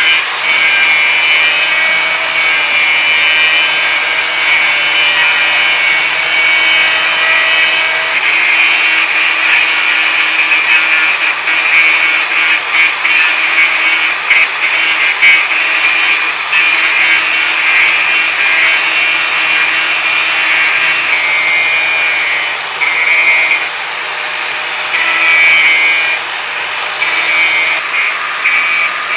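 Angle grinder's abrasive disc running against metal: a loud, steady high-pitched whine over harsh grinding noise, easing off briefly about three-quarters of the way through.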